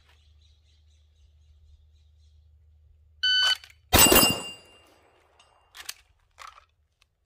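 A shot timer beeps once. About three-quarters of a second later a SIG P320 pistol fires two quick shots about a sixth of a second apart, and the hit steel target rings on with a single high tone after them. A couple of small clicks follow near the end.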